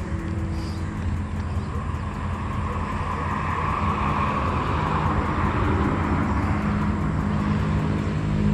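Steady low engine hum, with a rushing noise that swells to a peak about five seconds in and then eases.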